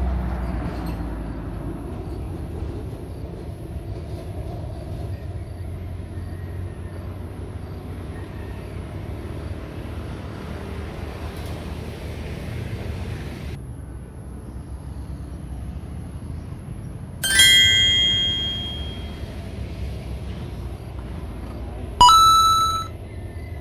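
Steady low outdoor rumble, then two bright ringing chime tones, one about three-quarters of the way in and a lower one near the end, each dying away over about a second.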